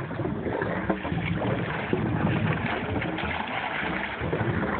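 A boat's motor running steadily at idle, with wind buffeting the microphone.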